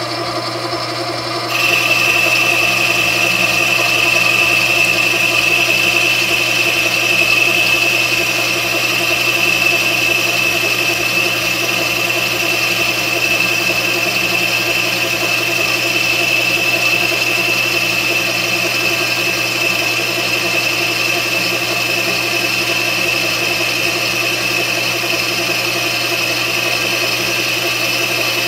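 Metal lathe running with a steady motor hum while a boring bar cuts inside the spinning part. About a second and a half in the tool bites and a steady high-pitched whine sets in, holding as the cut feeds on.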